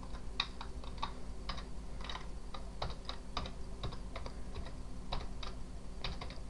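Typing on a computer keyboard: irregular key clicks, about three a second, as a computer name is entered.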